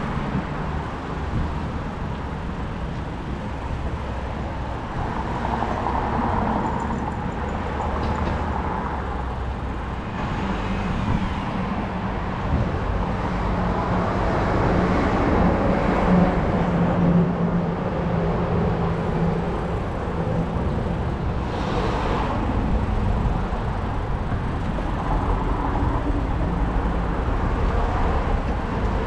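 City street traffic heard from a moving bicycle: a steady rumble of cars and road noise, with one vehicle louder and closer about halfway through.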